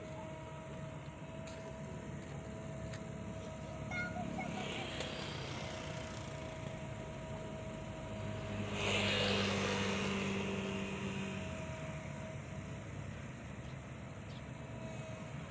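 Diesel engine of an excavator running steadily with a constant hum; about nine seconds in it grows louder for a couple of seconds, then settles back.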